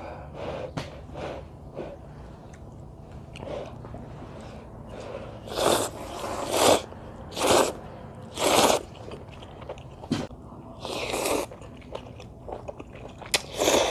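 A person slurping ramyeon noodles from a bowl: quiet mouth clicks at first, then about six loud, short slurps spaced about a second apart over the second half.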